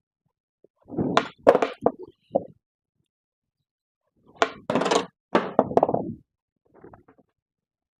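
Skateboard kickflip attempts: the tail snapping on the ground, the board flipping and clattering down, and the wheels rolling. The sound comes in two clusters of knocks, about a second in and again about halfway through, with a faint short rattle near the end.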